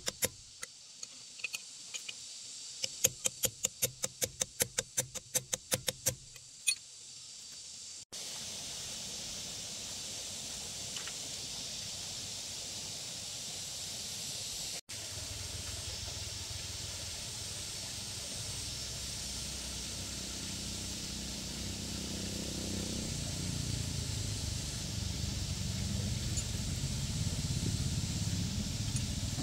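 Hammer blows on a metal tool held against a truck's wheel-hub nut: a quick run of sharp, ringing metallic strikes, about three a second, that stops about seven seconds in. Then comes a steady hiss with a low rumble that grows louder near the end.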